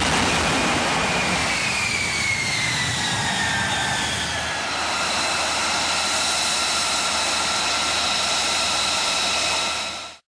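F-35B Lightning II's jet engine running loud, with a high whine that falls in pitch over the first few seconds and then holds steady. The sound fades out near the end.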